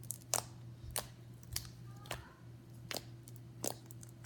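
Slime being poked and squeezed, its air bubbles popping in sharp, irregular clicks about every half second.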